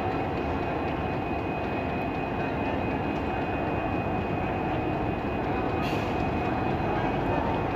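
Diesel locomotive's engine running steadily as it rolls slowly in with its coaches, a dense rumble with a faint high whine over it, growing a little louder toward the end. A brief click about six seconds in.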